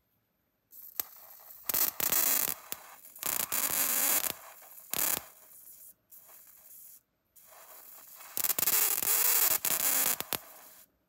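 High-voltage electric arc from a flyback transformer generator jumping between two wire ends, a harsh crackling hiss. It starts about a second in and comes in loud stretches with quieter spells and two brief breaks in the middle. It cuts off abruptly just before the end.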